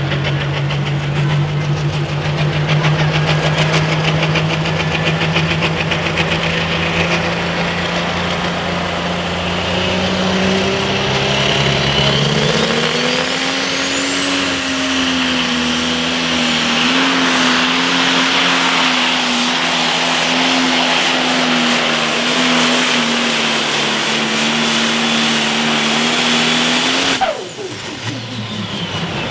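Turbocharged diesel engine of a John Deere pro stock pulling tractor running hard under load down the track. Its pitch climbs partway through and holds high, with a high turbo whine rising. Near the end the throttle is chopped and the engine note drops suddenly as the built-up boost releases in a turbo flutter.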